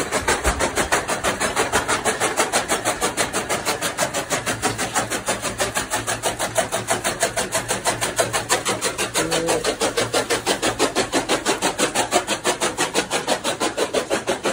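Electric chaff cutter chopping green fodder stalks: the flywheel-mounted blade makes a steady, rapid chop about five times a second over the running motor.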